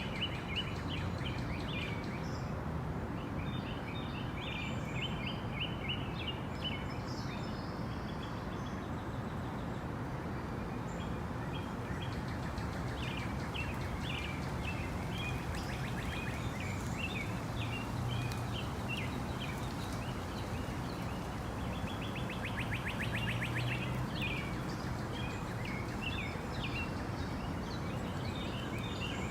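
Tropical rainforest ambience: many birds chirping and calling in short notes over a steady rushing background. A fast trill stands out about three-quarters of the way through.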